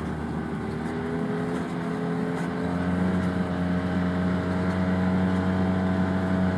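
Arctic Cat Wildcat Trail UTV's engine running steadily under way. Its pitch rises a little about two to three seconds in, then holds even.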